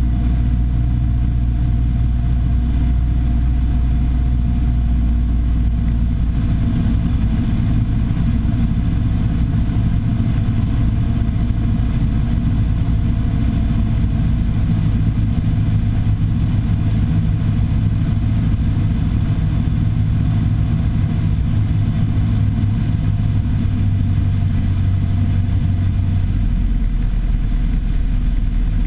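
Piper Warrior III's four-cylinder Lycoming O-320 engine and propeller running with a steady drone. Its low tones shift a few seconds in and again near the end.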